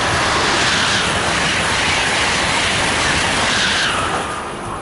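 Amtrak Acela Express high-speed trainset passing through at speed: a loud, steady rush of wheels on rail and moving air, which fades about four seconds in as the train goes by.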